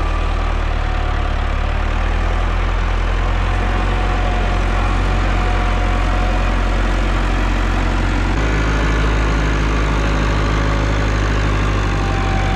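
Ursus tractor's diesel engine running close by as it hauls a trailer loaded with hay bales. It is a steady, loud drone whose note changes slightly about two seconds in and again about eight seconds in.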